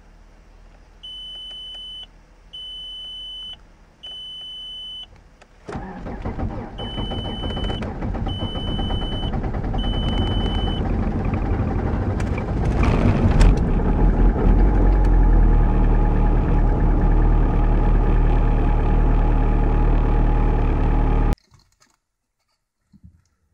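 Audi A4 B5 1.9 TDI four-cylinder turbodiesel cold-starting at −19.5 °C: a dashboard warning chime beeps three times, then about six seconds in the engine cranks, catches and settles into a steady idle while the chime beeps four more times. The engine briefly gets louder about halfway through, and its sound cuts off suddenly shortly before the end.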